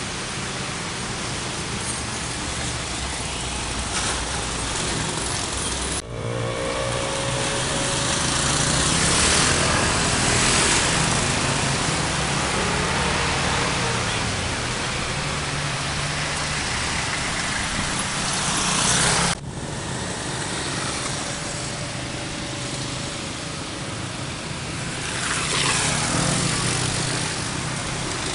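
Road traffic passing: engines and tyre noise, with one vehicle passing close about three quarters of the way through. The sound breaks off sharply twice.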